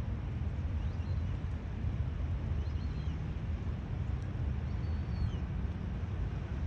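Seashore ambience: a steady low rumble of water and wind, with a few faint, short high bird chirps.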